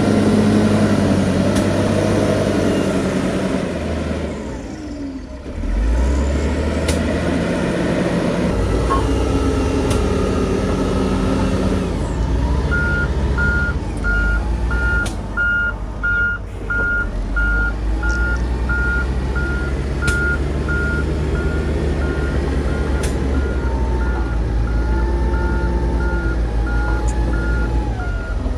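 Diesel engines of heavy earthmoving machinery running steadily. About halfway through, a reversing alarm starts, beeping evenly about twice a second as a machine backs up.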